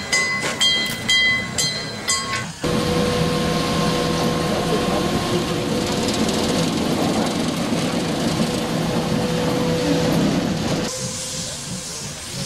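Small steam tank locomotive 89 7159 passing with rhythmic metallic clanks, about two or three a second. About two and a half seconds in, this cuts to the steady running noise and hum of the electric locomotive E 69 02 hauling coaches. Near the end it cuts again, to the hiss of steam from an approaching steam locomotive.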